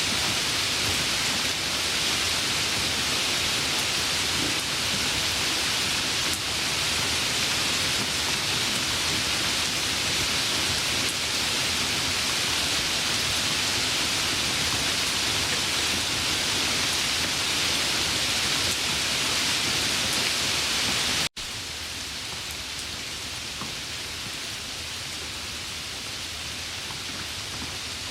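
Steady rain falling, an even dense hiss. About two-thirds of the way through it cuts out for an instant and comes back quieter and softer.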